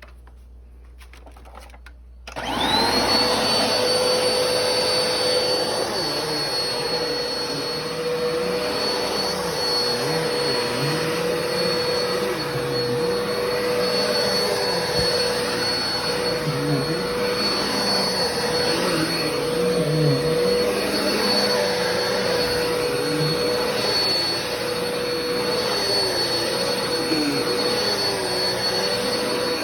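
Black & Decker vacuum cleaner switched on about two seconds in, its motor spinning up fast and then running steadily with a high whine.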